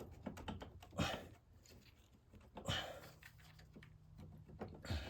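Light clicks and taps of metal parts being wiggled and pushed as a shock is worked into its mount, with two strained grunts, about a second in and near the middle.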